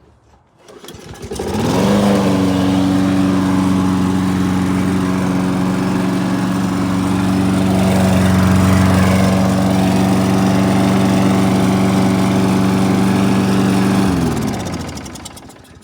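Lawn mower's small single-cylinder engine starting up and rising quickly to a steady fast run. About fourteen seconds in it drops in pitch and dies away as it is shut off, done by pulling the spark plug wire because the grounding wire to the coil has been disconnected.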